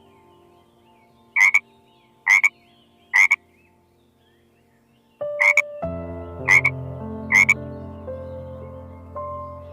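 Six short animal calls, evenly spaced: three in a quiet stretch, then three more over background music that comes in about five seconds in.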